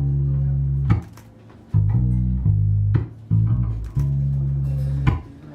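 Instrumental music led by held low bass notes that break off and come back every second or two. Sharp percussive hits land about every two seconds.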